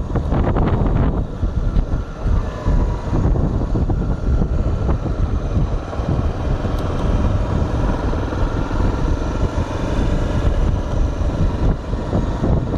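Honda XR 250 Tornado's single-cylinder engine running as the bike rolls along slowly, with wind buffeting the handlebar-mounted microphone.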